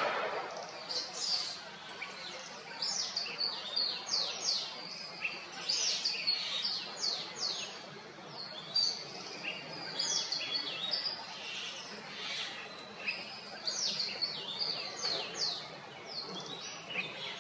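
Several small woodland birds chirping, a busy, overlapping run of short, high, falling notes several times a second.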